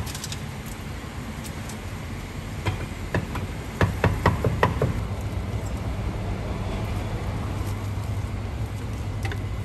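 Steady low rumble of background road traffic at a street-side food stall, with scattered light clinks and knocks bunched about three to five seconds in.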